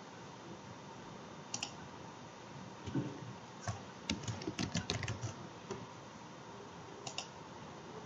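Computer keyboard keystrokes typing a short word in a quick burst of clicks about three to five seconds in, with a few single clicks before it and another near the end.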